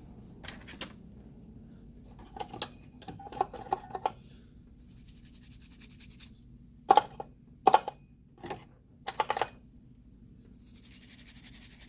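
Small clicks and taps of tools and a phone motherboard being handled on a work bench, with two short stretches of high hiss, about five seconds in and near the end, as the water-damaged board is cleaned with a toothbrush and alcohol.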